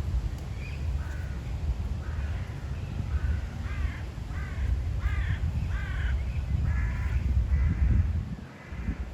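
A bird calling: a run of about a dozen short repeated calls over several seconds, against a steady low rumble of wind on the microphone.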